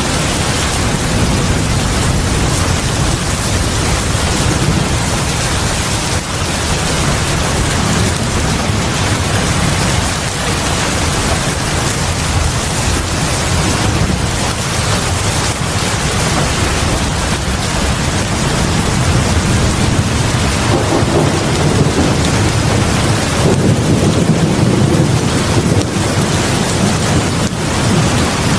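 Heavy rain pouring steadily onto a porch and the house front: a dense, unbroken hiss with a strong deep low end, swelling a little about two-thirds of the way in.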